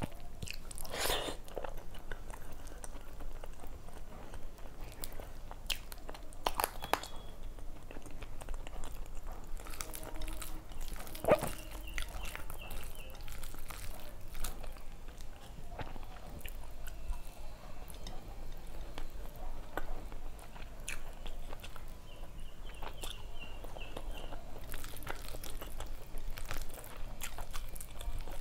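A person chewing and smacking their lips close to a clip-on microphone, eating rice and fried fish by hand, with fingers squishing and mixing rice on a plate. The sound is a string of irregular wet clicks and smacks.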